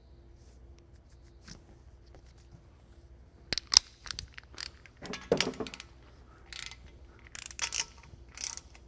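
Torque wrench ratchet and socket working on the main-cap stud nuts of an engine block: scattered metal clicks and short rattling runs, starting about three and a half seconds in.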